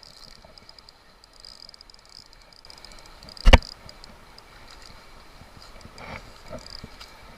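A steady high insect chirring throughout, with one sharp thump about three and a half seconds in.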